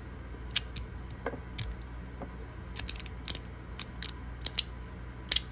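Resin-printed magnetic fidget slider with hybrid magnets (the Verk from Kladis3Dstudios) being slid through tricks. Its plates snap into place with sharp, irregularly spaced clicks, about a dozen in all.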